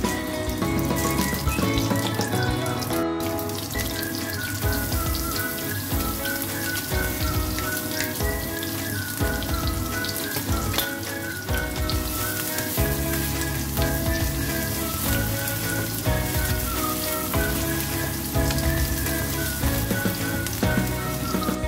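Background music, a stepping melody over a bass line, with the fine crackle of ground-fish balls frying in oil in a pan underneath.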